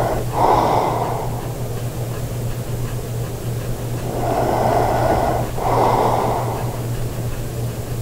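A sleeping man breathing heavily with an anti-snoring mouthpiece in. There are three loud, airy breaths: one just after the start, and two back to back about four to seven seconds in.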